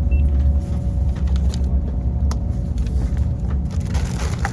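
Steady low rumble of a moving vehicle heard from inside the cabin, with a faint constant hum above it and a few light clicks.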